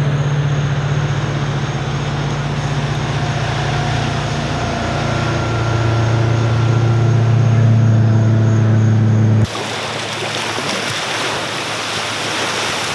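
Motorboat engine running steadily across the water, its pitch dropping about halfway through. About nine and a half seconds in it cuts off abruptly to small waves breaking on a sandy shore, with wind on the microphone.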